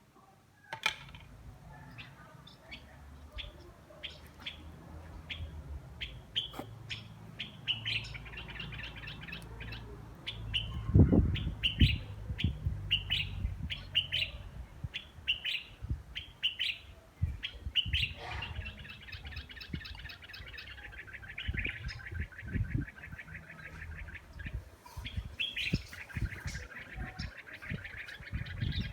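Small birds chirping, with repeated short calls and fast trills, over a low rumble and a few low thumps, the loudest about eleven seconds in.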